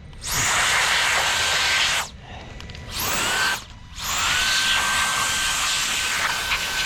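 Small electric air duster blowing in three bursts, its motor whining up to speed at the start of each and then running steady; the last burst is the longest.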